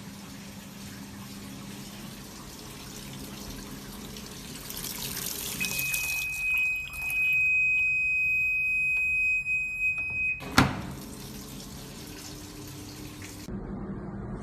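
Water running into a fully automatic washing machine with a low steady hum. About six seconds in, a steady high-pitched electronic tone sounds for about five seconds, cut off by a sharp click.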